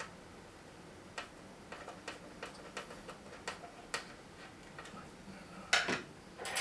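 Small sharp clicks and ticks from hands working on a boombox's plastic case and small parts, about two or three a second, then two louder clatters near the end.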